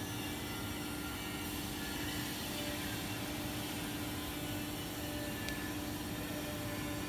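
Steady background hum and hiss: an even, unchanging noise with a constant low tone, and a faint tick about five and a half seconds in.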